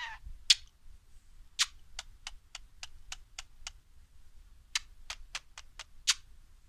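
A budgerigar gives a short chirp at the start, then makes a series of sharp, high clicks with its beak. The clicks come in two runs of about three to four a second, with a pause between them.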